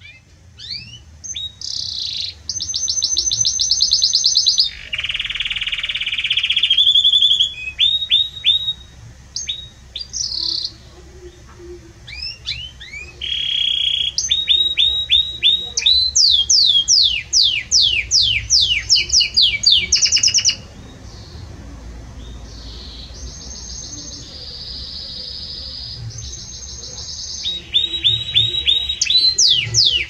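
Belgian canary singing a long, loud, varied song of rapid trills and rolls, with runs of fast repeated downward-sweeping notes and a quieter buzzy stretch in the middle.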